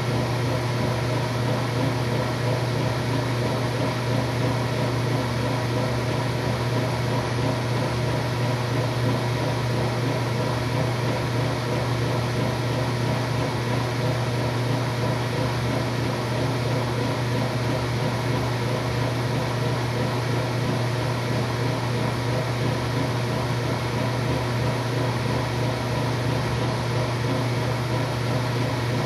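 Washing machine running with a steady, unchanging hum.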